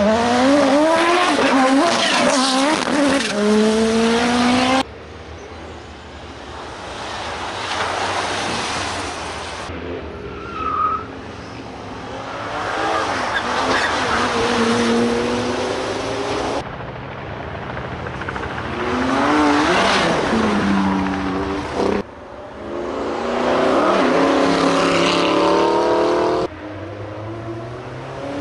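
Engines of a string of different cars driven hard past one after another, each rising in pitch as it revs up and falling away as it goes by, in about six short passes joined by abrupt cuts; one of the cars is a Bentley Bentayga SUV.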